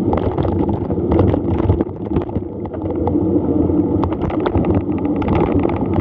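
Wind rushing over the microphone of a mountain bike in motion, with rattles and clicks from the bike over rough ground.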